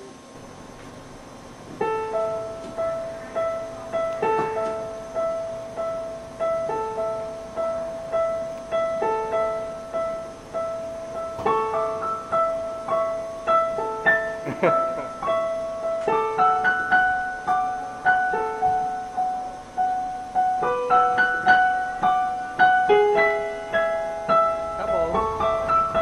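Piano music: a slow, repeating melody of single struck notes that begins about two seconds in and thickens into fuller chords in the second half.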